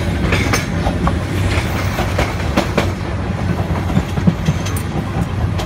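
Passenger train running at speed, heard from inside a coach: a steady low rumble of wheels on the track, with irregular clacks and clicks.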